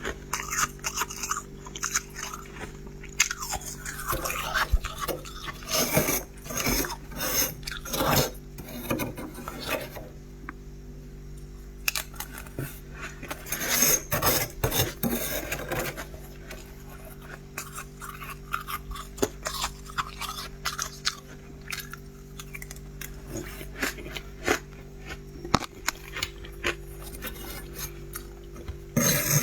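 Freezer frost being bitten and chewed in close-up: irregular crunches and scrapes in clusters, with a short lull about ten seconds in, over a steady low hum.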